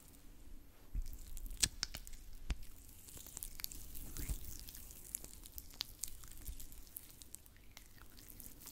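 Oiled hands in a face-massage motion, giving soft, irregular wet squishes and sticky crackles.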